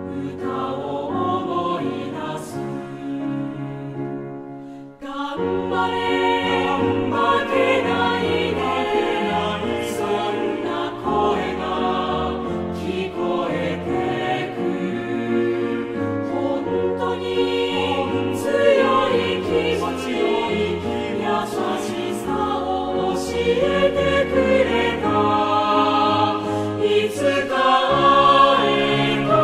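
Music: a choir singing over accompaniment, dropping away briefly about five seconds in and then coming back fuller.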